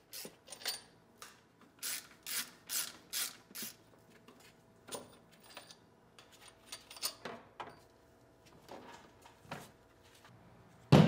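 A hand ratchet clicks in short strokes, loosening the A/C compressor's mounting bolts, with scattered metal clicks and knocks and a louder knock at the end.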